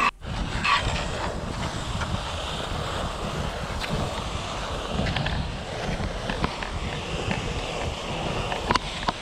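Continuous rushing and scraping of snow under a climber glissading seated down a steep snow slope in crampons, with wind buffeting the microphone. A couple of sharp knocks near the end.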